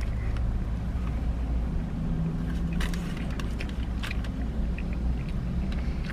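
A man chewing a mouthful of burrito, with a few short wet mouth clicks around the middle, over a steady low rumble inside a parked car.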